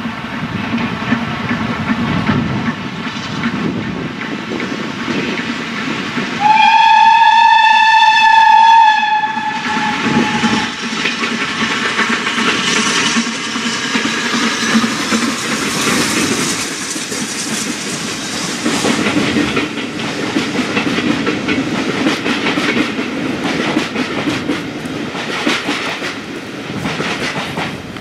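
Steam locomotive passing with a train of coaches, sounding one long whistle blast of about three seconds roughly six and a half seconds in, the loudest thing heard; the coaches then roll by with a rapid clatter of wheels over the rail, fading away near the end.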